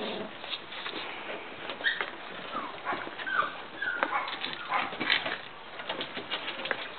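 Cavalier King Charles spaniel puppies whimpering, with several short high squeaky yips in the middle of the stretch. Scattered light taps and clicks run under them.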